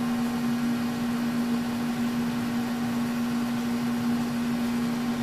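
Steady hum of a Kearney & Trecker horizontal milling machine running, one unwavering pitched tone with fainter overtones above it.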